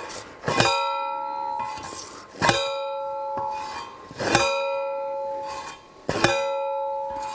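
Manual post driver (post whacker) pounding a fence post into the ground: four metal-on-metal clangs, each one ringing on for over a second, at a steady pace of about one blow every two seconds.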